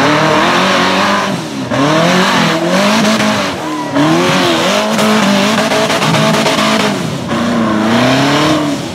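Twin-turbocharged 5.3-litre LS V8 in a rock-bouncer buggy screaming at high revs under hard throttle on a steep climb, its pitch rising and falling over and over as the throttle is worked, with a brief drop-off every couple of seconds, over a steady rushing hiss.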